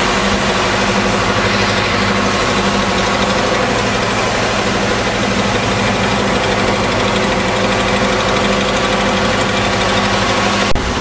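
Loud, steady drone of a river hydrofoil's engines under way, heard from on board, with one short knock near the end.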